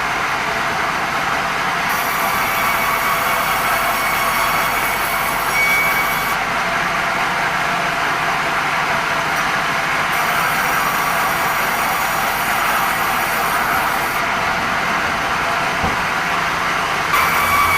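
Sawmill band saw running steadily as it saws red meranti timber, a loud, even machine noise with a faint steady whine.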